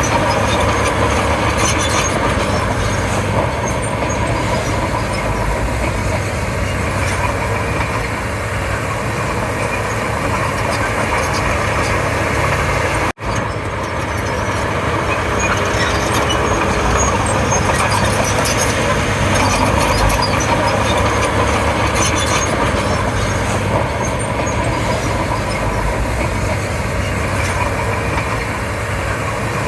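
Komatsu D31P bulldozer's diesel engine running loud and steady while the machine works, cut off for an instant near the middle.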